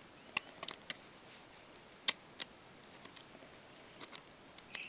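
Scattered small sharp clicks and taps of the new iPhone 3G front assembly being handled and slid into the phone's housing. The loudest is a pair of clicks about two seconds in.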